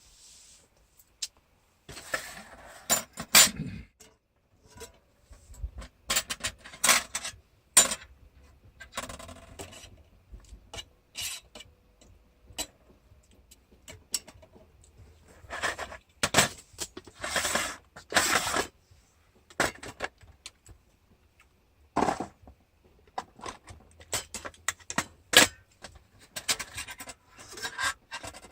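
Metal camping gear being handled: irregular clinks, scrapes and rustles in short bursts, with quiet gaps between them.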